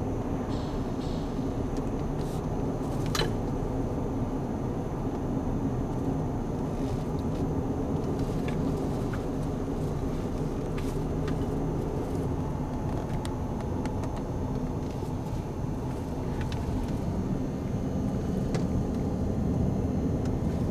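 Steady road and engine rumble heard from inside a moving car, with a few faint clicks, the sharpest about three seconds in.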